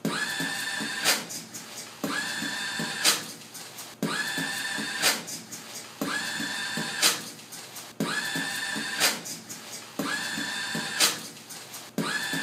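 Automatic paper towel dispenser's motor whirring for about a second as it feeds out a towel, ended by a sharp click. The same short sequence repeats every two seconds, about six times, with a loop-like regularity.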